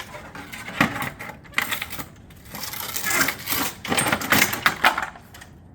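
Stone-coated steel roof panel being cut on a panel cutter: a run of metallic clanks, clicks and crunching, busiest from about a second and a half to five seconds in.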